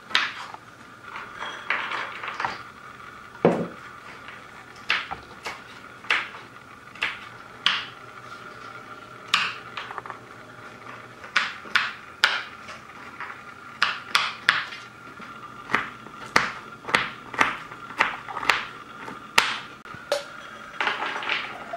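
Kitchen knife chopping walnut kernels on a bamboo cutting board: irregular sharp knocks of the blade on the wood, roughly one or two a second.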